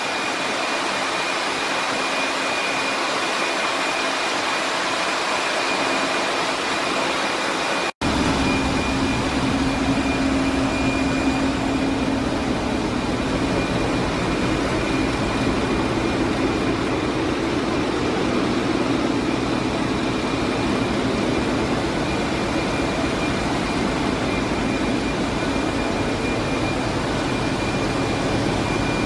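Steady engine-room din of Wärtsilä 8L50DF dual-fuel ship engines and their machinery running, with a thin high whine held throughout. The sound cuts out for an instant about eight seconds in, and after that the low drone is heavier, with a deeper steady hum.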